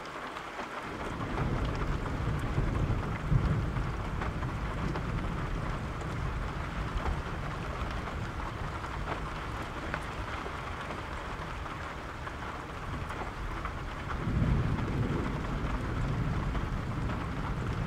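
Steady rain with rolling thunder: a low rumble builds about a second in and peaks soon after, fades slowly under the rain, and a second roll of thunder swells near the end.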